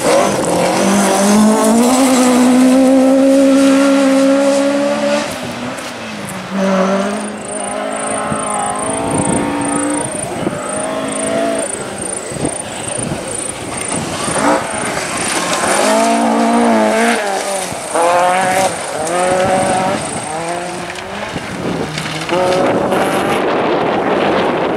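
Rally car engine revving hard, its pitch climbing in several runs and dropping back at each gear change or lift.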